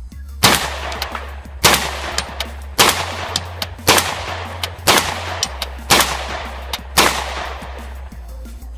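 .300 AAC Blackout AR-15 pistol fired seven times at a steady pace of about one shot a second, each report ringing out, with background music under it.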